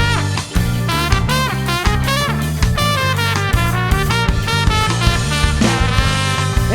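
Ska band playing an instrumental with no singing: horn melody lines over bass, drums, guitar and organ.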